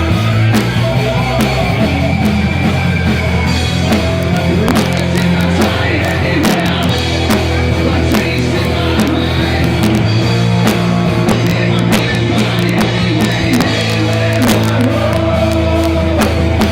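Live heavy metal band playing loud, with distorted electric guitars, bass and a pounding drum kit, and some sung or yelled vocals.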